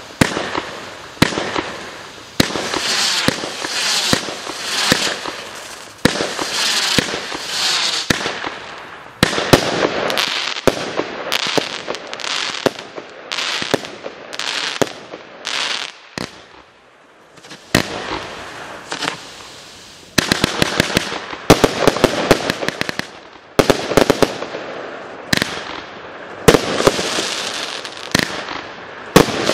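A 56-shot firework barrage cake firing in a steady run of sharp shots, each followed by the hissing, crackling burst of glitter stars. There is a short lull a little past halfway, then quicker clusters of shots and crackle.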